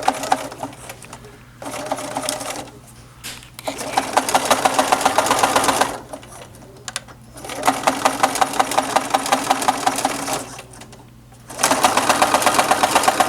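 Sewing machine stitching through heavy pack webbing in about five runs of rapid, even needle strokes with short pauses between. It is sewing a reinforcing cross-stitch, going across and back over the strap.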